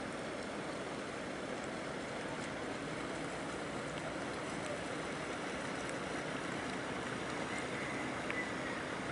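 Steady rush of water and boat noise, heard from aboard a boat under way on a river.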